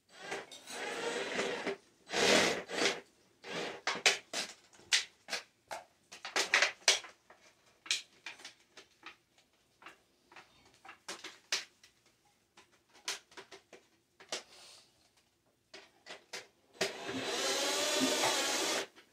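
Handheld power drill running in short bursts, with a longer run of about two seconds near the end whose pitch wavers as it bites, likely drilling or driving screws into thin tin-can sheet metal. Many clicks and light metallic knocks from the tin being handled come between the runs.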